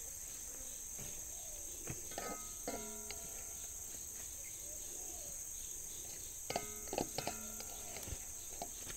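A spatula scraping and knocking against a metal wok in two short bouts, each clink leaving a brief metallic ring, as fried fern shoots are scooped out. Behind it, forest insects keep up a steady high-pitched drone.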